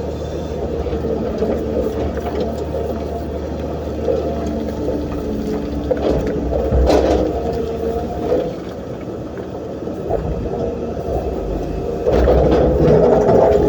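Hydraulic excavator's diesel engine running under working load with a steady low rumble, its pitch shifting as it works, with a few short knocks about halfway through and growing louder near the end.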